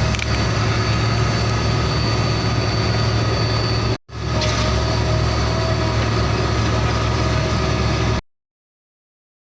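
Diesel truck engine idling steadily with a deep rumble. It cuts out for a moment about four seconds in, resumes, and stops abruptly a little after eight seconds.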